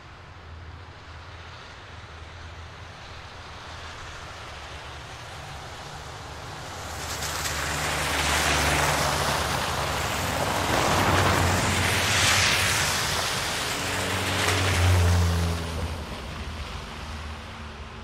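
City traffic on a wet, slushy street: vehicles pass one after another with tyres hissing and splashing through slush. The passes swell in the middle, and the last carries a deeper engine hum before fading.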